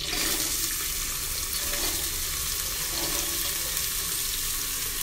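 Hot oil sizzling steadily in a pan as finely chopped red onions are added to it by hand.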